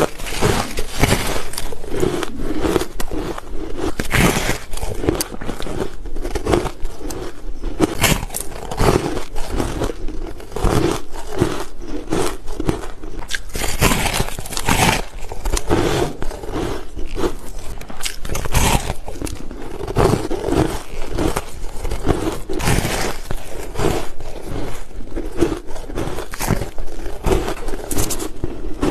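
Close-miked biting and chewing of a brittle white block: a dense, continuous run of sharp crunches.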